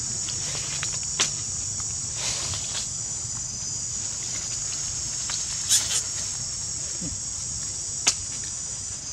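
Steady high-pitched insect chorus, with a few short sharp crackles of dry leaves being stirred, the loudest a little after one second and about eight seconds in.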